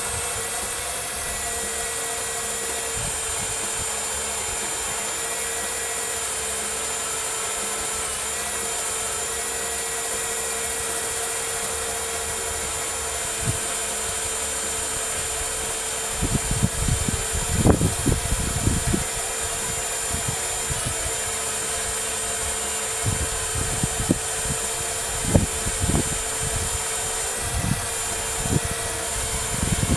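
Hydraulic pump of a miniature RC Liebherr 944 excavator running steadily with a constant hum, while the long demolition boom is lowered. Clusters of irregular clicks and knocks come in about halfway through and again in the last third.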